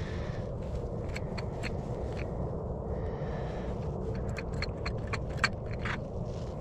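Small sharp clicks and light scrapes of ice-fishing tackle being handled, irregular and scattered, the loudest a little over five seconds in, over a steady low rumble.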